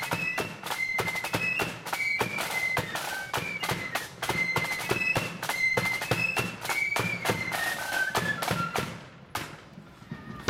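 Marching flute band playing a tune: shrill flutes over rapid, driving snare and bass drum beats. The music stops about nine seconds in.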